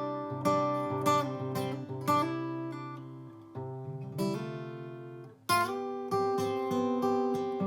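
Martin OM-28 Reimagined acoustic guitar, capoed at the fifth fret, playing picked chords: single notes plucked one after another and left to ring over each chord. The chord changes about three and a half seconds in and again, with a sharper, louder attack, about five and a half seconds in.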